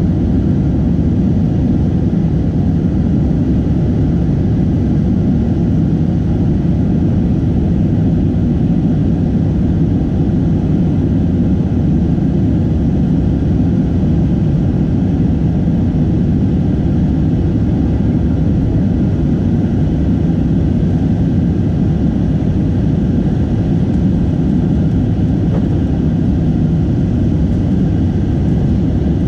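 Airbus A319 cabin noise during the climb after takeoff: a steady, loud, low roar of jet engines and airflow, heard inside the cabin by the wing, unchanging throughout.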